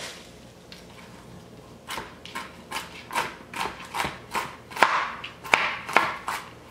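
Chef's knife chopping walnuts on a cutting board: a quick run of sharp chops, about three to four a second, starting about two seconds in.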